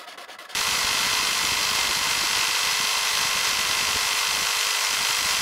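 A few strokes of a hand file on steel plate, then, about half a second in, an electric jigsaw running steadily in its home-made roller-bearing blade guide, a loud even buzz with a steady hum beneath it.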